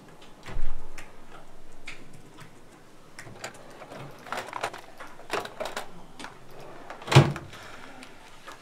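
A door shuts with a thud about half a second in. Small clicks and knocks of objects handled on a desk follow, with a louder knock just after seven seconds.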